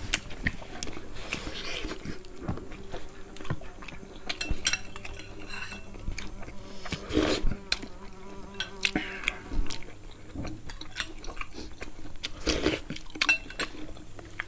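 Close-up eating sounds: chewing and lip smacking on roasted pig head meat, with small clicks and taps of fingers and a spoon on the plate. A faint low steady hum sits underneath for most of the stretch.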